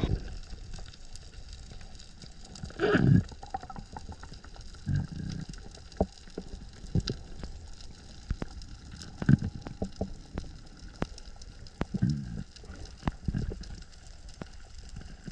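Water heard underwater: bubbling and gurgling surges every few seconds over a low wash, with scattered sharp clicks.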